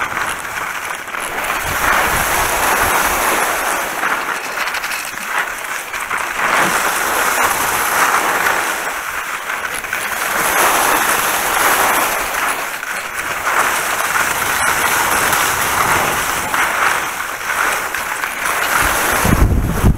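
Skis sliding and carving on wet snow: a steady hiss that swells and fades over and over as the skier turns, with wind on the microphone and a low rumble of wind buffeting near the end.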